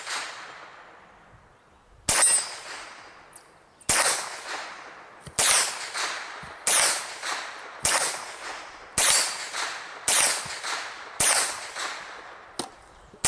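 Semi-automatic Ruger 10/22 .22 rifle firing about eight shots at a steady pace, roughly one every second and a bit. Each shot is a sharp crack followed by a fading tail.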